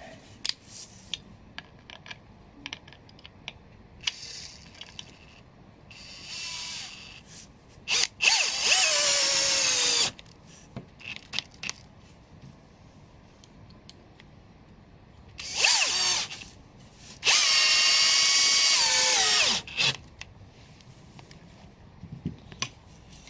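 A 12 V cordless drill-driver drives wood screws into the plywood side of a loom frame. The motor makes two runs of about two seconds each, one about a third of the way in and another about three-quarters of the way in, each with a short trigger blip just before it, and its pitch sags under load as the screw draws in. Light clicks and handling knocks come between the runs.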